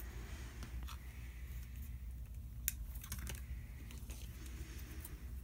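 Faint, scattered light clicks and taps of small plastic parts and hand tools being handled on a workbench, with one sharper click a little under three seconds in, over a low steady hum.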